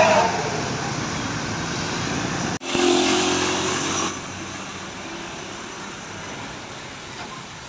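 Vehicles passing on a road, mainly a steady haze of engine and tyre noise that fades over the first seconds. The sound cuts abruptly about two and a half seconds in, comes back louder for about a second and a half, then drops to quieter traffic noise.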